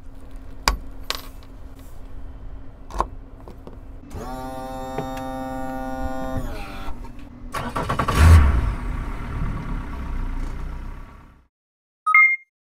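Yamaha 115 hp outboard motor being started: a few sharp clicks, then a steady whine for a couple of seconds, and about eight seconds in the engine catches with a loud burst and runs until it cuts off abruptly. A short two-tone beep follows near the end.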